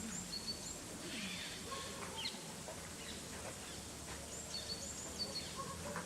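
Outdoor background noise with small birds calling: short high chirps and whistles, one cluster near the start and a similar cluster about four and a half seconds in.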